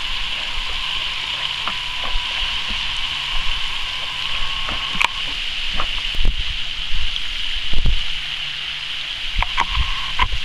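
Steady watery hiss outdoors, with scattered small clicks and splashes from a dog swimming across a pond.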